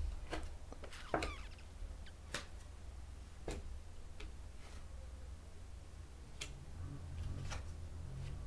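Tarot cards being flipped face-up and laid down on carpet: faint, scattered card clicks and light taps, roughly one every second or so, over a low steady hum.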